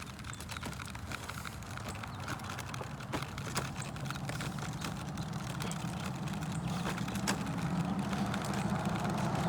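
A low, steady engine hum that grows gradually louder, like a motor vehicle coming closer, with scattered small clicks over it.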